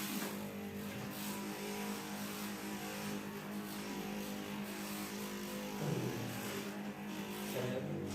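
Steady electric motor hum with a strong low pitch and many overtones. A brief rougher patch comes about six seconds in.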